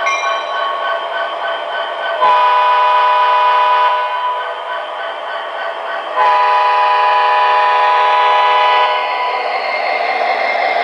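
Sound system of an MTH O scale model diesel locomotive blowing two long multi-tone air-horn blasts over the running diesel engine sound. The engine sound grows louder near the end as the locomotive moves off.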